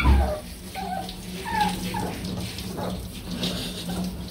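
Small dog whimpering in several short falling whines, the loudest right at the start, while water from a handheld sprayer runs over it. A steady low hum runs underneath.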